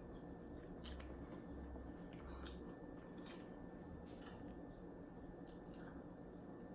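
A person chewing food close to the microphone: soft, wet mouth clicks and smacks a few times over the stretch, over a faint steady hum.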